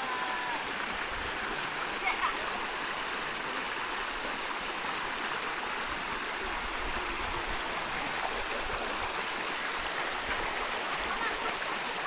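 Steady rushing of a rocky stream and its small cascades, water pouring over stone.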